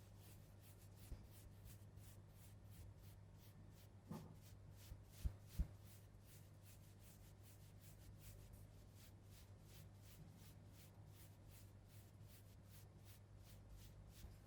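Near silence over a low steady hum, with faint rubbing and a few soft taps about four to six seconds in.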